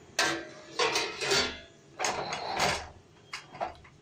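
Steel lid being put onto a steel wok: metal scraping and rattling in several short bursts, then a few light clicks as it settles.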